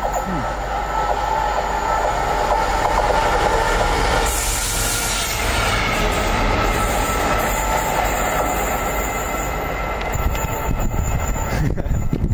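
A locomotive-hauled freight train running through the station: a steady rumble of wheels on rail with a high whine, and a brief hiss about four seconds in.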